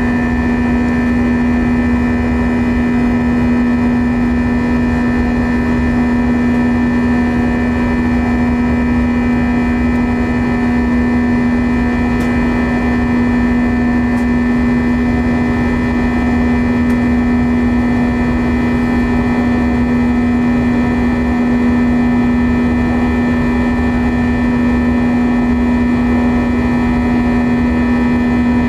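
Airbus A320's IAE V2527-A5 turbofan engines heard inside the cabin in the climb after takeoff: a loud, unchanging drone with one strong low hum-like tone and several fainter higher tones over a steady rush.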